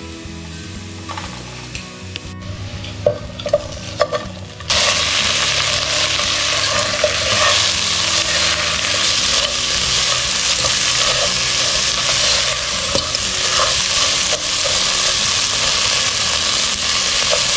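Crenata swimming crabs and abalone sautéing in hot oil with garlic, onion and ginger in a pan. A few knocks come first, then about five seconds in a loud, steady sizzle starts suddenly and keeps on with clicks of stirring.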